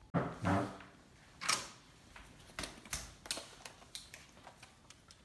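A short creak, then a run of irregular clicks and small mechanical knocks from a handheld camera being handled and worked.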